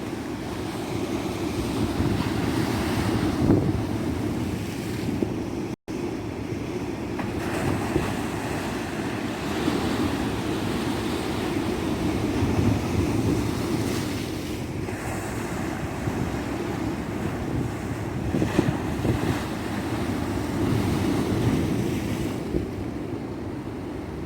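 Tropical ocean surf breaking on a sandy beach: a continuous wash that swells and eases every few seconds, with a low rumble of wind on the microphone. The sound cuts out for a split second about six seconds in.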